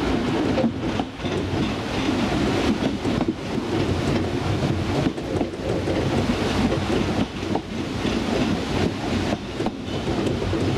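A 2 ft narrow-gauge passenger train running along the line, heard from its open carriage veranda: a steady rumble of the wheels on the rails, with frequent irregular clicks and knocks.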